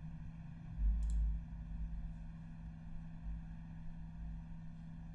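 Steady low background hum, with a short low thump and a faint click about a second in.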